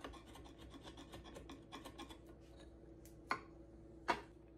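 A hand rubbing and brushing over a red oak workpiece in light scratchy strokes, then two sharp wooden knocks a little under a second apart near the end as the pieces are picked up and handled.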